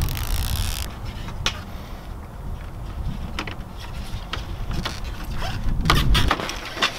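Red plastic liner being peeled off the 3M double-sided adhesive tape on a chrome grille insert, a hissing, tearing sound in the first second. Then scattered clicks and taps as the insert is fitted and pressed onto the truck's grille, the loudest near the end, over a low rumble.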